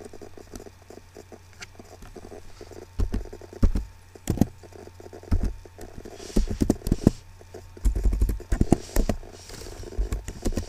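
Computer keyboard keys pressed one at a time, slowly and unevenly: scattered clicks and knocks, some with a low thump, over a steady low hum.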